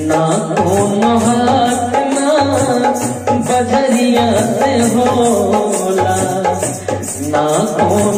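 Background music: a melody over a steady beat.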